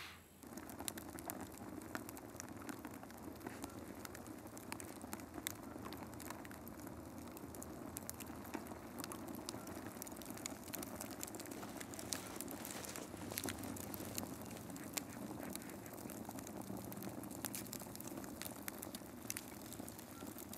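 Small open fire crackling: dense, irregular pops and snaps over a steady low hiss.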